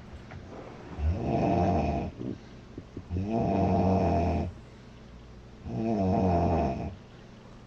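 A woman snoring loudly: three long snores, each about a second or more, coming evenly about every two and a half seconds with quiet breaths between.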